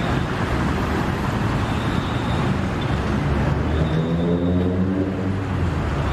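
Steady road traffic noise from a busy street, with a louder steady drone for a second or so about four seconds in.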